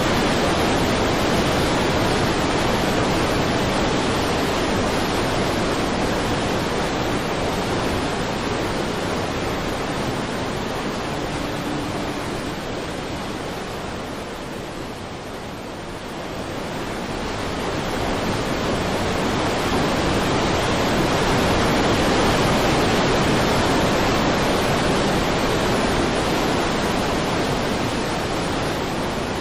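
Muddy floodwater of the swollen Yellow River rushing and pouring over Hukou Waterfall and churning through the channel, a loud steady rush of water. It sinks briefly about halfway through and then rises again.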